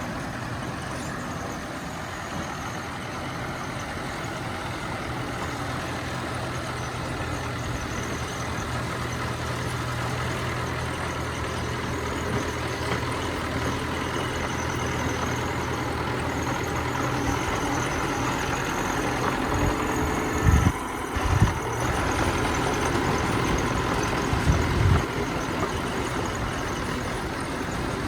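Bulldozer's diesel engine running steadily. A few short, heavy low thumps come about two-thirds of the way through and again a few seconds later.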